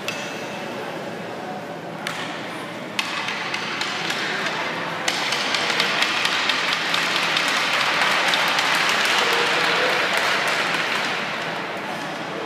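Spectators applauding, a dense patter of many claps mixed with crowd voices, swelling about five seconds in and fading near the end.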